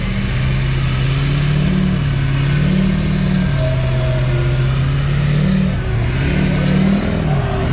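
Pickup truck engine revving in the soft sand, the throttle held at one speed, then pushed up or eased off, then held again, several times, as the truck spins its wheels.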